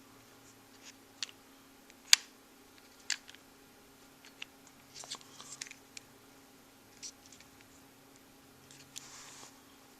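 Scattered sharp clicks and taps of small hard parts being handled during RC transmission assembly, the loudest about two seconds in, with a brief rustle near the end.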